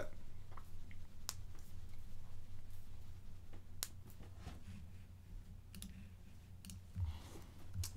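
Faint, irregular clicks from a computer keyboard and mouse, roughly one a second, over a low steady hum.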